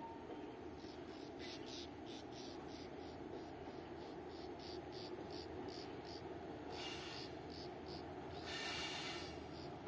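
Insects chirping in a steady rhythm, about three high chirps a second, with a couple of longer, louder calls near the end, over a steady low background noise.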